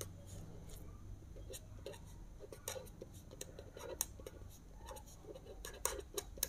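Pen writing on paper: faint, irregular scratches and light taps of the pen strokes.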